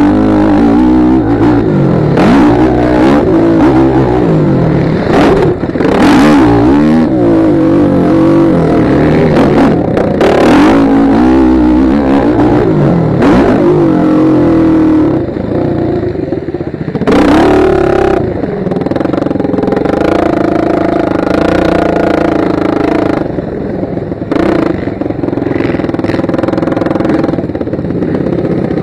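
Motocross bike engine heard from the rider's helmet, revving hard and backing off again and again as it shifts through the gears, with wind rushing over the microphone. After about fifteen seconds it settles to a steadier, lower pace, with one more short rev a couple of seconds later.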